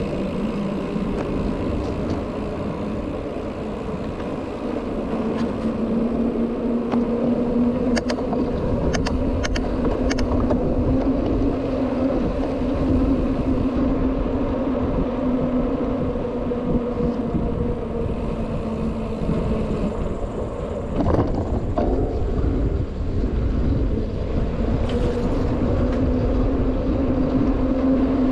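A vehicle running at a steady pace: a continuous droning hum with low rumble, slowly wavering in pitch, with a few faint ticks about a third of the way in.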